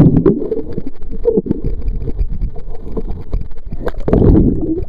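Muffled underwater rumble and sloshing of pool water around a Kodak PlaySport ZX3 waterproof camcorder held below the surface. Louder surges come right at the start and again about four seconds in.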